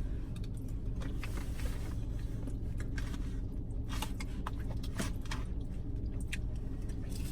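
Chewing and wet mouth sounds of someone eating creamy fettuccine alfredo, a scatter of short irregular clicks, over a steady low hum inside the car.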